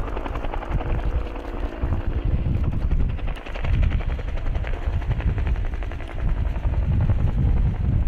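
Military helicopter flying by, its rotor chopping rapidly and evenly over a deep rumble.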